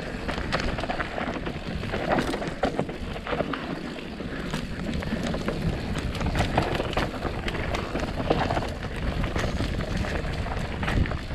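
Mountain bike rolling down a rough, rocky trail: tyres crunching over loose volcanic cinders and rock, with frequent small knocks and rattles from the bike and a steady rush of wind on the microphone.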